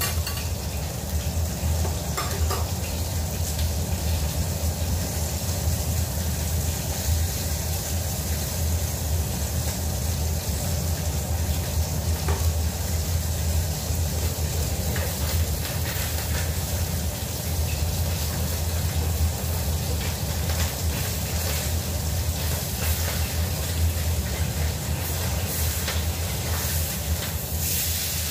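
Food sizzling and frying in a carbon-steel wok over a gas flame, a steady hiss over a steady low rumble. A few light knocks, and a metal spatula scraping in the wok near the end.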